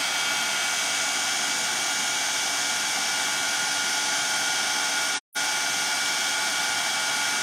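Handheld craft heat tool blowing steadily, drying wet watercolour paint on paper, with a faint steady whine in its rush of air. The sound cuts out for a split second just over five seconds in.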